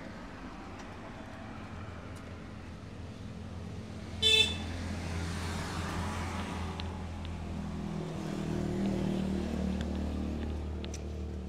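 A vehicle horn gives one short beep about four seconds in, over the running engine of a motor vehicle passing close by, which grows louder toward the end.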